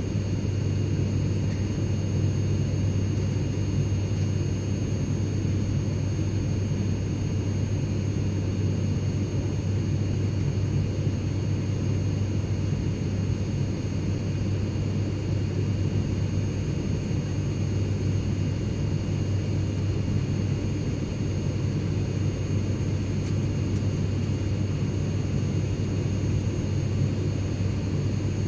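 Private jet cabin noise: a steady low rumble with faint, steady high-pitched whines above it.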